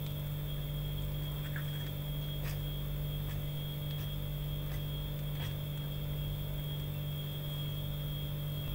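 A steady low hum, with a few faint clicks of a metal fork against a ceramic plate as flour is stirred into batter.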